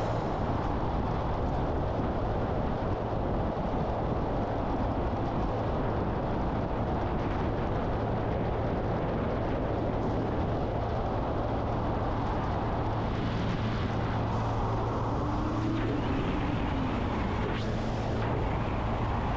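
Honda CG Titan 160 motorcycle riding at a steady speed: wind rush over the microphone with the engine's steady hum underneath.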